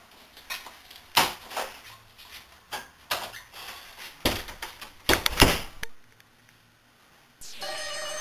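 Knocks and bumps of a wooden interior door being pushed open and people moving about, the loudest knocks about a second in and just past five seconds. Music with held tones comes in near the end.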